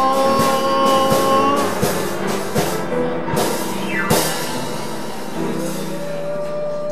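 Live band playing the closing bars of a blues-style song, with held chords and drum hits. A quick falling run leads into a final drum hit about four seconds in, then a single note is held near the end.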